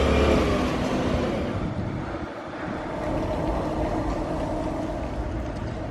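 A motor vehicle passing: a steady low rumble, loudest at the start and slowly fading away.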